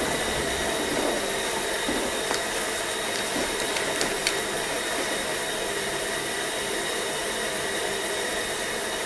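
Propane tank-top heater burning with a steady hiss, with a few faint ticks.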